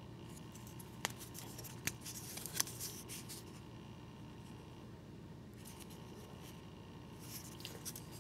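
MTech linerlock rescue pocket knife being handled up close: three sharp metallic clicks in the first few seconds with light scraping, and more scraping near the end.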